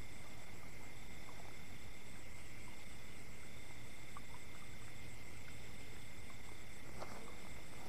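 Night chorus of crickets and other field insects: steady high-pitched trilling on several pitches, one of them switching on and off. Some rustling starts near the end.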